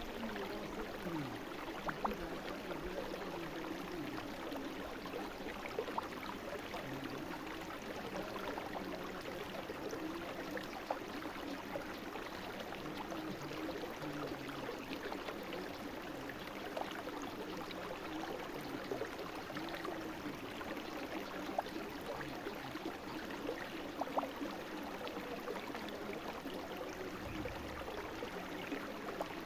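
Small brook flowing and babbling steadily, with now and then a brief sharp plink of water.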